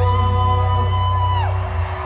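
Live pop-punk band holding a loud final chord at the end of a song. A high sustained note slides down in pitch about one and a half seconds in, and the band's sound falls away near the end.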